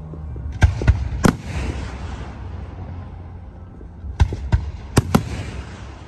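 Aerial firework shells bursting overhead. Three sharp bangs come in the first second and a half, followed by a brief hiss, then four more bangs about four to five seconds in.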